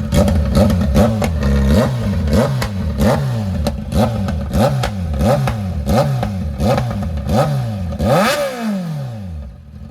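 Kawasaki inline-four motorcycle engine with its de-cat pipe removed, blipped on the throttle again and again: about a dozen short revs, each rising and falling in pitch, with sharp pops. Near the end a higher rev falls away and the engine settles lower.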